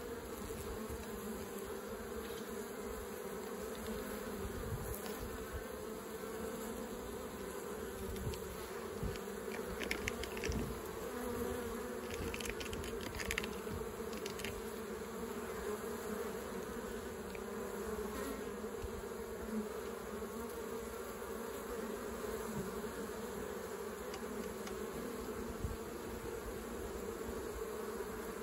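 Honeybees buzzing at a busy hive entrance, a steady hum of many foragers flying in and out, some bringing in pollen.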